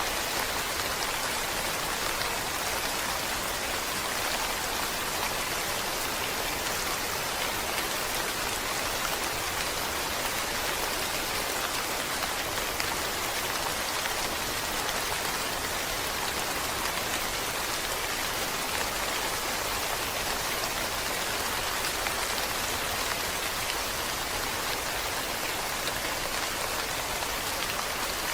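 Rain falling steadily: an even, unbroken hiss of many drops.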